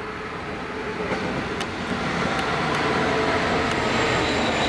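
Class 66 diesel-electric locomotive approaching and passing close by. Its two-stroke EMD V12 engine and its wheels on the rails grow steadily louder, with a few sharp clicks.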